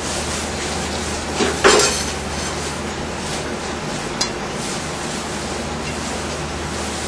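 Kitchen work sounds: a short clatter about one and a half seconds in and a brief click just after four seconds, over a steady hiss.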